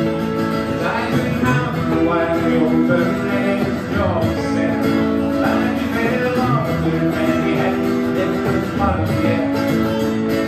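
Live band playing an instrumental passage of a country-rock song: electric guitar over a strummed acoustic guitar, with steady, sustained notes and no singing.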